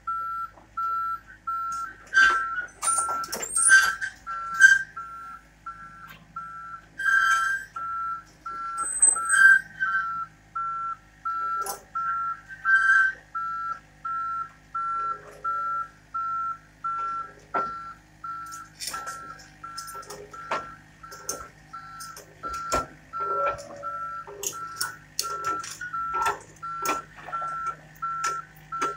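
Mini excavator's travel alarm beeping steadily, about one and a half beeps a second, over a low steady engine hum, with scattered knocks and clanks of the machine moving.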